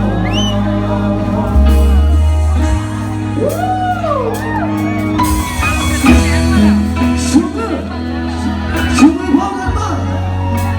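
Live band music from a Thai rot hae parade sound truck, played loud through its speaker stack: heavy bass notes, drum hits and a wavering sung melody.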